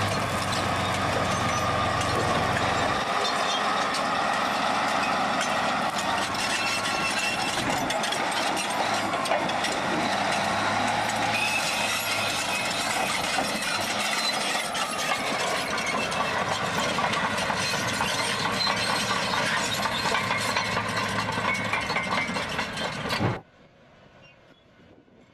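Heavy machinery running steadily, its engine noise mixed with a whine that slides in pitch midway. The noise cuts off abruptly near the end, leaving only a faint sound.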